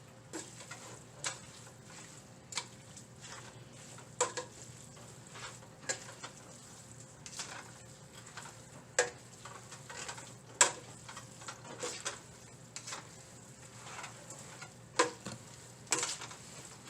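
Cooking utensil stirring bihon noodles and vegetables in a pot: irregular short knocks and scrapes against the pot, about a dozen over the stretch, over a faint steady sizzle of the simmering pancit.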